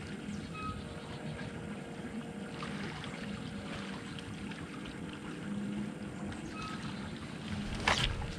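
Small waves lapping against a bass boat's hull, with a faint steady hum. Near the end there is one sudden sharp swish and thump as the angler sweeps the rod back to set the hook.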